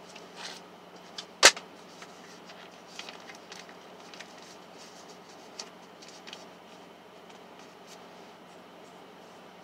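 Small handling noises from a pen and notepad: scattered light clicks and paper rustles, with one sharp, loud click about a second and a half in, over a steady low hum.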